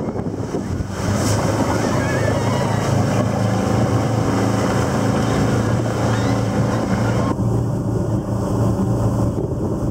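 Mercury outboard motor running steadily at speed while towing, with the rush of its wake and wind buffeting the microphone.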